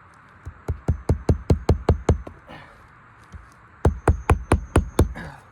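Hammer driving roofing nails through asphalt shingles: two runs of quick, even blows, about five a second, with a faint high ring off the metal.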